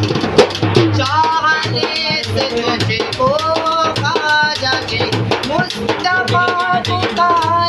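A man singing a qawwali in a full voice with long held, bending notes, accompanying himself with quick, steady hand strokes on a steel-shelled hand drum.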